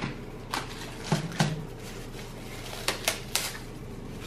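Paper bag and plastic fork wrapper being handled and torn open: a handful of short, sharp crinkles and clicks, several bunched together about three seconds in.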